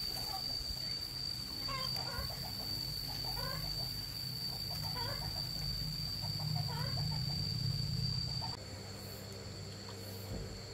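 Chickens calling, about four short calls spaced a second and a half apart, over a steady high whine and a low hum that both stop shortly before the end.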